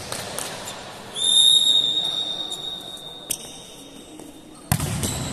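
Referee's whistle blown in one long steady blast about a second in, fading away over a few seconds: the signal allowing the serve. Near the end comes a sharp smack, the volleyball being struck.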